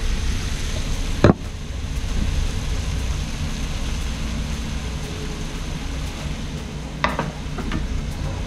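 Onion, mushrooms and crushed garlic sizzling in oil in a frying pan on high heat. There is one sharp knock about a second in and a few lighter taps near the end.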